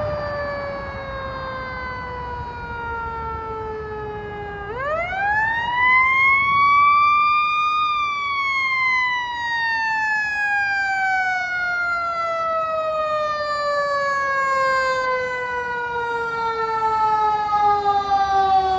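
Fire engine siren. It winds down slowly at first, then about five seconds in sweeps up quickly to a high peak, and slowly winds down again. It grows louder near the end as the engine approaches.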